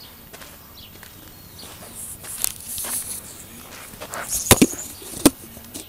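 Scattered sharp knocks and clicks: a few light ones, then a loud close pair about four and a half seconds in and another loud one near the end.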